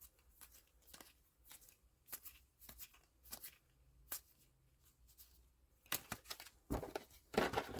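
Trading cards being flipped through one at a time, a short card snap about every half second, with louder, busier rustling of the cards being handled near the end.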